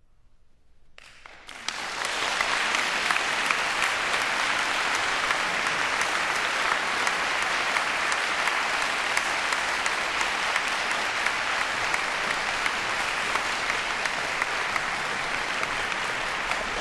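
Audience applause in a concert hall: after a second of near silence it breaks out and within about a second rises to steady, full clapping that holds.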